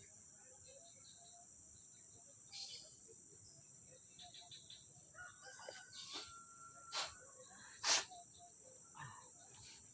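A rooster crowing in the distance over a steady high drone of crickets, with a few sharp knocks in the middle, the loudest near the end.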